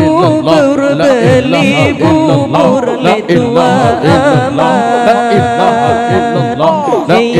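Zikir saman devotional chanting: a male voice sings long, ornamented lines with a wavering vibrato over a steady rhythmic percussive beat.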